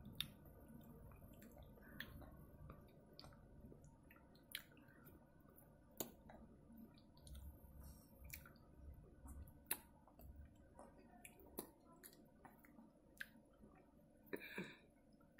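Faint, scattered wet clicks and smacks of a baby sucking on a lollipop, a second or two apart, over near-silent room tone. A brief higher-pitched squeak comes near the end.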